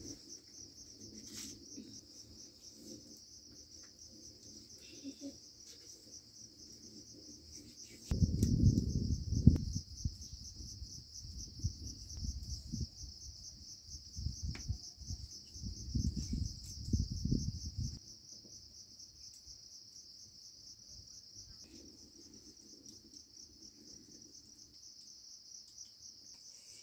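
Insects chirring: a steady, high-pitched, fast-pulsing drone. From about 8 to 18 seconds in, loud irregular low rumbling cuts in over it, then stops.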